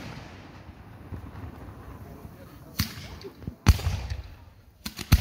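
Aerial firework shells bursting with sharp bangs: one about three seconds in, a louder one a second later, and two close together near the end, each trailing off in a low rumble.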